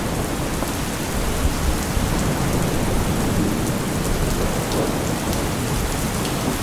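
Steady rain pattering on surfaces, with a low rumble of thunder underneath.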